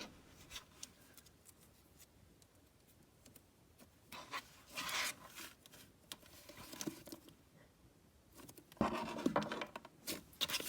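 Soft scratching and rubbing handling noises with scattered light clicks, coming in a few short patches; the loudest stretch is about nine seconds in.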